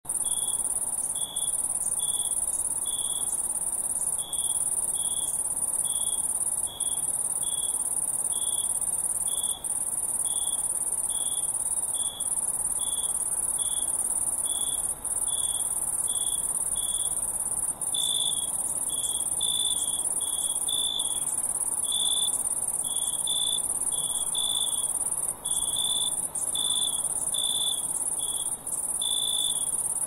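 Crickets chirping: a steady high-pitched trill, with a lower chirp repeating about twice a second.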